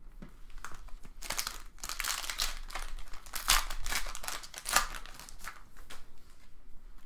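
Wrapper of a trading-card pack crinkling as it is handled and opened. The dense crinkling starts about a second in and dies away near the end, loudest in the middle.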